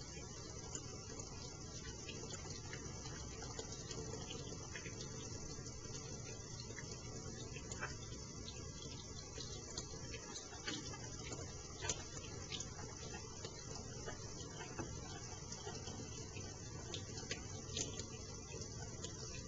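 A thin stream of tap water running steadily into a stainless steel sink while soapy hands rub lather together, with scattered small wet clicks and squelches.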